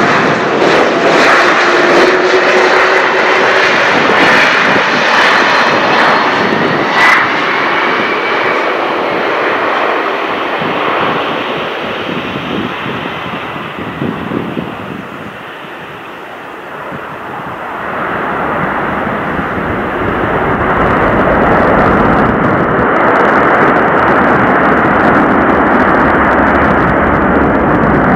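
Boeing 747-400 freighter's four jet engines passing close on its landing, with a whining tone over a dense jet noise. The noise fades about halfway through, then builds again, fuller and deeper, and stays loud.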